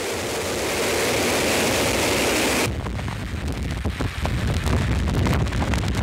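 Storm sea: a steady rushing hiss of rough surf that cuts off abruptly about halfway through. Heavy waves breaking against a pier follow, with strong wind buffeting the microphone.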